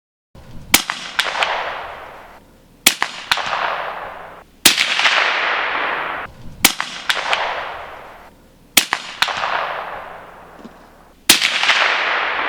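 Six suppressed rifle shots from a 300 AAC Blackout rifle with a Gemtech suppressor, about two seconds apart. Each is a sharp crack followed by a long fading tail.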